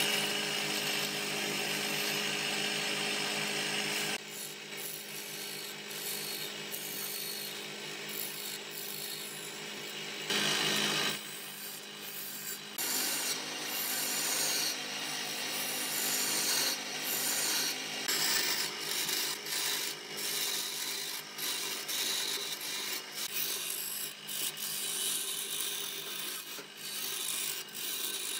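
Hand turning chisel cutting and scraping a spinning wooden vase blank on a wood lathe, a continuous rasping over the lathe motor's steady hum. The sound changes abruptly a few times.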